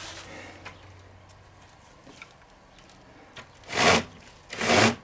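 Cordless drill-driver unscrewing screws from a wooden board, running in two short bursts of about a third of a second each near the end, with the screws grinding out of the wood.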